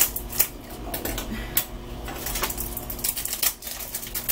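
Crinkling and sharp clicks of a soap bar's paper wrapping being handled and opened by hand, in an irregular run with a few louder snaps.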